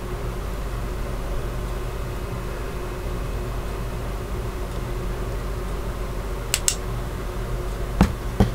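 Steady low background hum and hiss, with a few short sharp clicks in the last two seconds. The last clicks come as the UV flashlight is switched off after curing the resin.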